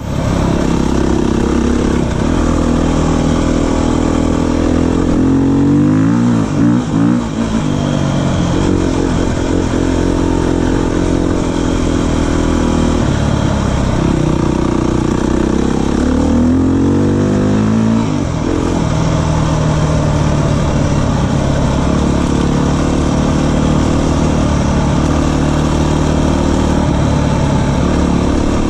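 Beta 350 enduro motorcycle's four-stroke single-cylinder engine running under way on a gravel track. The engine note drops and climbs again twice, about a fifth of the way in and a little past halfway, as the throttle is eased off and opened back up.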